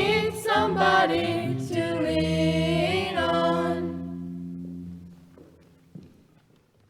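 A choir singing the closing phrase of the song, then holding a final chord that fades out about four to five seconds in.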